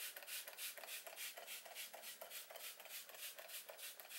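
Pump spray bottle of MAC Charged Water facial hydrating mist being spritzed over and over in quick succession, a rapid even train of short hissing puffs about four a second.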